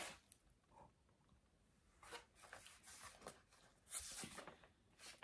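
Near silence: room tone with a few faint, brief rustles.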